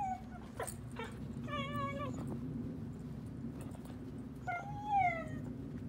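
Siberian husky puppy whining in three high-pitched calls, the last and loudest rising then falling. She is whining for a football stuck out of reach above her.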